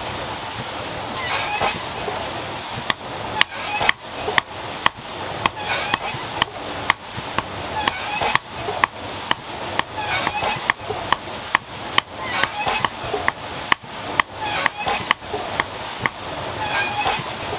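Hand hammer striking red-hot iron on an anvil, forging an iron nail. The blows come evenly, about two a second, starting about three seconds in.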